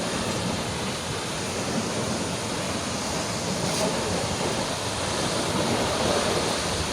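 Steady rushing of a waterfall: water pouring and splashing in an even roar-like hiss with no breaks.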